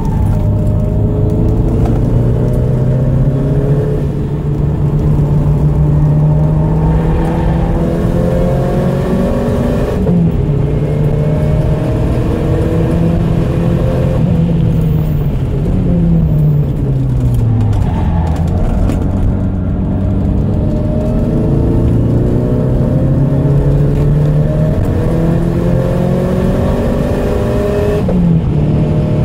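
Porsche 944 Turbo's turbocharged 2.5-litre four-cylinder engine heard from inside the cabin at racing speed. It revs up through the gears, with the pitch dropping sharply at each upshift. Near the middle the pitch sinks for a few seconds as the car slows, then it climbs hard again.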